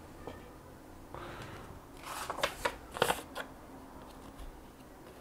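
A faint rub, then about five quick scraping strokes of a steel kitchen-knife blade against an abrasive during hand grinding.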